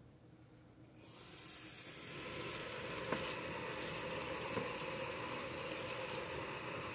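Kitchen faucet turned on about a second in, water running steadily into a stainless steel sink full of soap suds, with two brief knocks in the middle.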